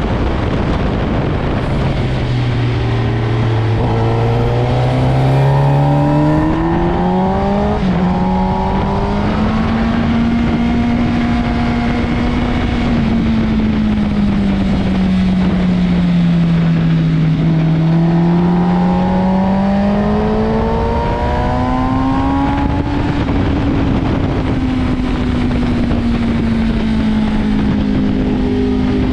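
Motorcycle engine running hard on a racetrack under a constant rushing noise. The engine note climbs through the first several seconds, eases down around the middle, climbs again and then settles near the end.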